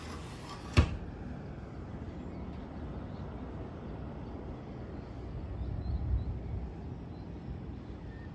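A single sharp thud about a second in, then a steady low rumble that swells briefly about six seconds in.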